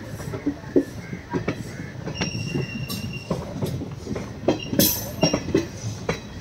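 Passenger train's wheels rolling slowly over points and curved track: irregular clacks and knocks at the rail joints, with a high wheel squeal for about a second, a little past two seconds in, and a sharp loud clack near five seconds in.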